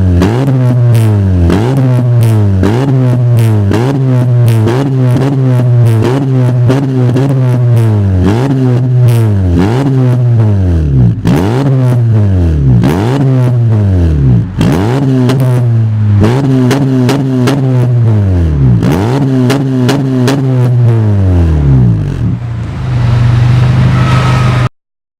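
Honda Civic FC's 1.8-litre four-cylinder engine revved repeatedly through an aftermarket header, mid-pipe and rear muffler. Each blip snaps up and falls back in pitch, about one every second and a half. Near the end it settles into a steady idle, then cuts off.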